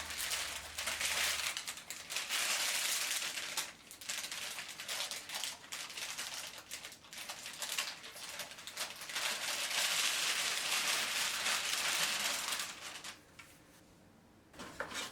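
Plastic packaging crinkling and rustling as it is handled, with small clicks and taps, stopping about thirteen seconds in.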